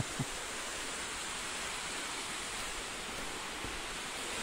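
Steady rushing of a waterfall, with a brief falling-pitched sound right at the start.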